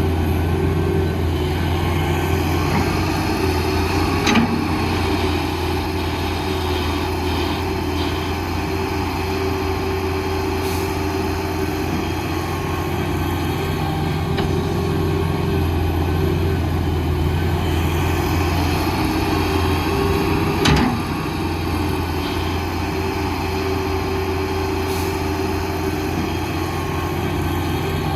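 Diesel engine of heavy earthmoving machinery running steadily at a low, even speed. There are two sharp knocks, one about four seconds in and a louder one about twenty-one seconds in.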